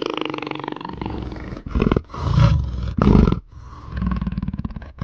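A big cat's rasping growl, broken about two seconds in by three short, loud roaring grunts about half a second apart, then rasping again near the end.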